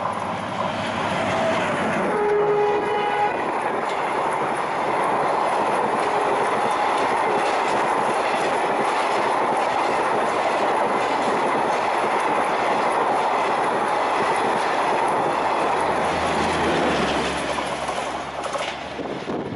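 WDM3A diesel locomotive hauling a Garib Rath Express through a station at speed, sounding its horn about a second or two in as it comes up. Then the coaches rush past with a steady clickety-clack of wheels over rail joints, dying away near the end.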